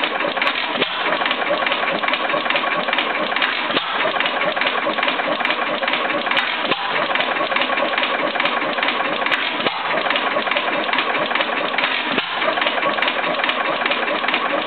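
A 5 hp Japy type M single-cylinder stationary engine running, a steady fast mechanical clatter with a stronger beat about every three seconds.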